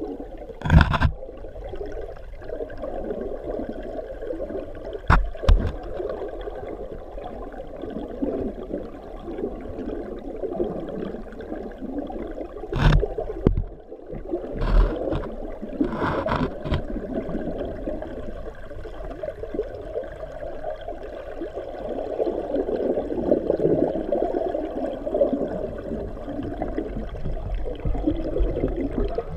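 Water rushing and churning through a fish ladder pool, heard underwater from inside a GoPro housing: a dull, muffled steady rush. Several sharp knocks cut through it, near the start, a pair about five seconds in, and a cluster around thirteen to seventeen seconds in.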